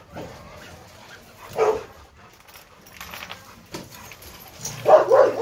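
Dog barking: a single bark about a second and a half in, then a quick run of two or three louder barks near the end.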